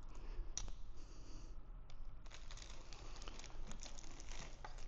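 Quiet crinkling of a clear plastic parts bag and light irregular plastic clicks and ticks as a small wiring harness and connector are handled and taken out of the bag.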